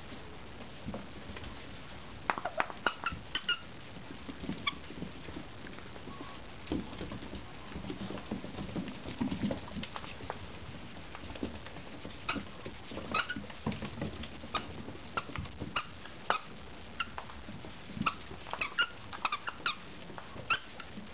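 Miniature dachshund puppies tussling over a sock toy, with many short, high squeaks coming in irregular clusters and scuffling of paws on a wooden floor.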